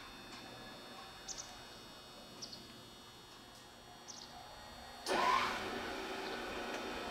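Quiet outdoor ambience with a few short, high bird chirps; about five seconds in it jumps suddenly to a louder steady rushing noise.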